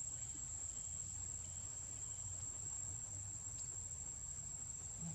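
Insects in the surrounding vegetation droning steadily on one high-pitched tone, over a low background rumble.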